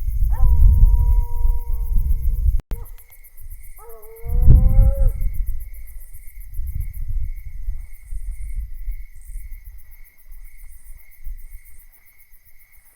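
Coonhounds bawling on a hot track: two long drawn-out bawls, the first held at one pitch and the second rising, over a low rumble on the microphone. Insects chirp steadily throughout.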